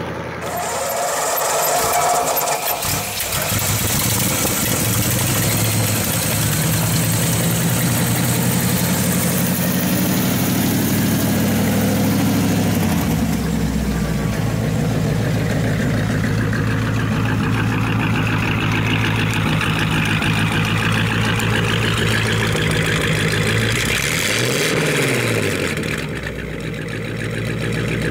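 The 239 cubic-inch flathead V8 of a 1941 Ford pickup, running steadily. A few seconds before the end it is briefly revved, its pitch rising and falling.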